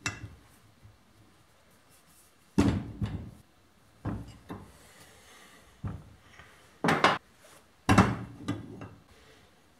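A series of irregular knocks and clunks, like objects being handled and set down, loudest about two and a half seconds in and again near the end.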